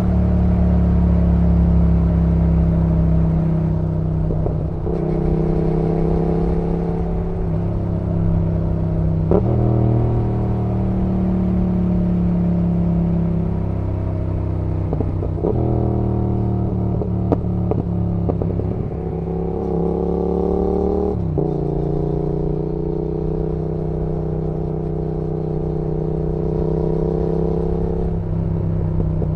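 2019 Yamaha XSR700's 689 cc parallel-twin engine running on the move. Its note drifts slowly down and then jumps up sharply about four times as gears change.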